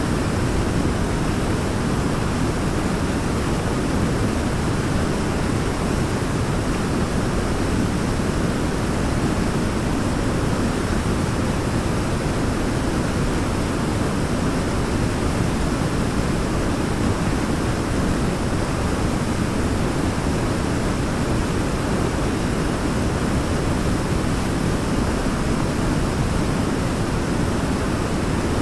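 Waterfall: a steady, even rush of falling water, deepest in the low range, without change.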